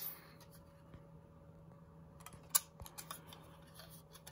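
Long-bladed shears snipping thin brass shim: a handful of short, sharp metallic snips, the loudest about two and a half seconds in, over a faint steady hum.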